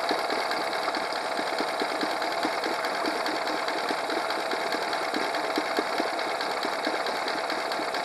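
Honda 8 hp four-stroke outboard engine idling steadily, its carburettor's clogged pilot jet freshly cleaned out.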